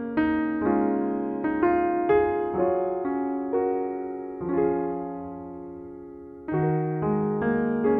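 Soft, slow solo piano background music: single notes and chords that ring and fade, with a fresh chord about six and a half seconds in.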